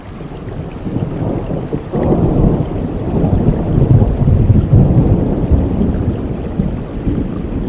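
Rolling thunder over steady rain: a low rumble that builds about a second in, is strongest around the middle, and eases off near the end before swelling again.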